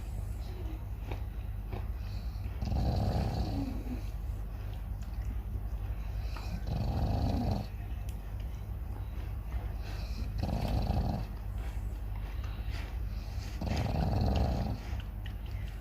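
Chow chow snoring in its sleep: four snores about three and a half to four seconds apart, each lasting about a second.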